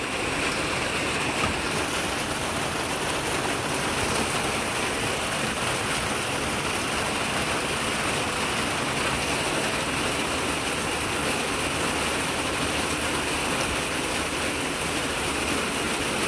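Heavy rain pouring steadily onto a greenhouse roof: a loud, even hiss.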